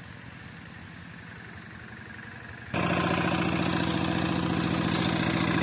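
Single-cylinder diesel engine of a two-wheel paddy-field hand tractor running with a steady, rapid firing beat. About three seconds in it becomes suddenly much louder.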